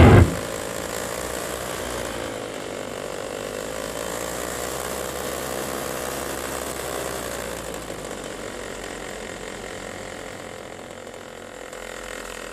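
Flat Top 160 paramotor engine running steadily behind the pilot, with wind rush, its tone wavering slightly. It eases off in the second half, throttled back on the low approach to landing.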